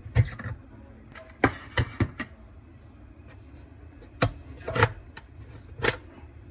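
Irregular sharp knocks and clatters of hard parts being handled, about eight in all, with a pause of roughly two seconds in the middle.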